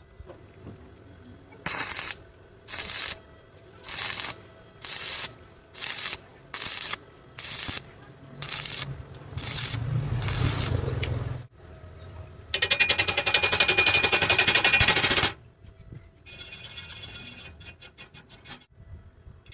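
Electric arc welding: about nine short, crackling bursts of arc roughly a second apart, as in stitch or tack welding. Then come a longer, louder continuous run of crackle lasting about three seconds and a weaker, sputtering stretch that breaks up into separate crackles.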